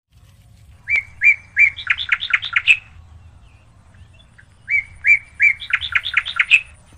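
Bird song: a phrase of a few clear notes followed by a quick run of chirps, sung twice about four seconds apart, over a faint low steady hum.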